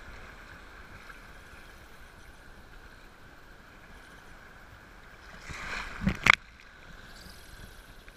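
Shallow surf sloshing close to the microphone. It swells to a loud splash of water about six seconds in.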